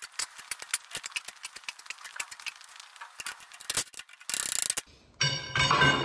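Steel tines and collets on a steel frame being handled: many light metallic clicks and rattles, then a short hissing scrape and a louder, ringing metal sound near the end.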